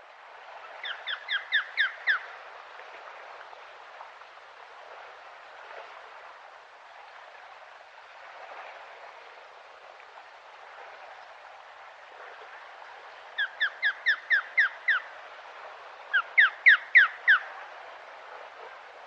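Osprey calling: three runs of short, high, down-slurred whistled notes, each run of about six or seven notes coming several a second, over a steady outdoor hiss.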